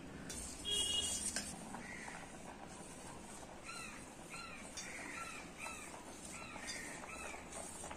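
A metal spoon clinks against a steel pot of milk as it is stirred, loudest about a second in. From about halfway on, a bird gives a run of short rising-and-falling chirps.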